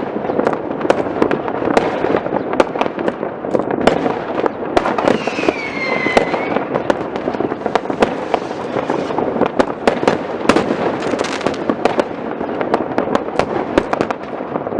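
Fireworks: a dense, continuous crackle with many sharp bangs throughout. About five seconds in, a whistle falls in pitch.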